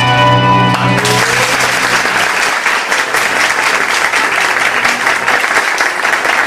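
Music ends on a held chord about a second in, and then an audience applauds, a steady dense clapping.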